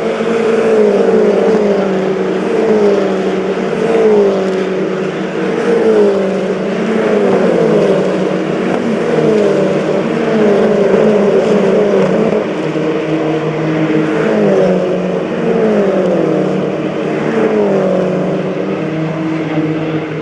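A pack of MINI Challenge race cars passing close by at speed, one after another, each engine note dropping in pitch as it goes past.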